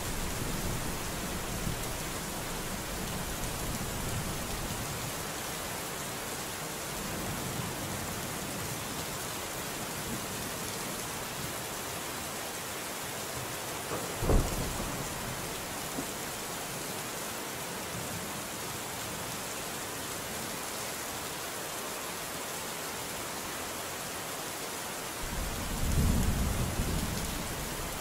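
Steady heavy rain hissing evenly. A single sharp thunderclap comes about halfway through, and a low rumble of thunder swells near the end.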